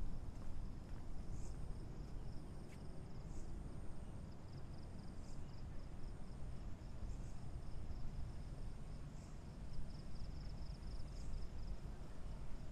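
Night insects calling: a steady high-pitched trill that pulses in places, with a short, higher chirp repeating about every two seconds, over a low rumble.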